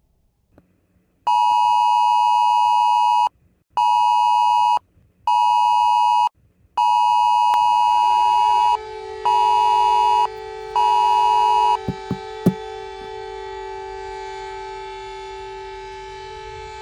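Emergency alert beep tones: six pulses of a steady high beep in a long-short-short, long-short-short pattern. Partway through, a warning siren winds up in pitch and then holds a steady wail after the beeps stop. A few sharp clicks come just after the last beep.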